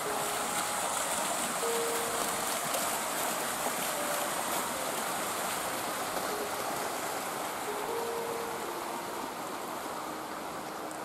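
Small fountain jets splashing into a garden pond: a steady rush of falling water.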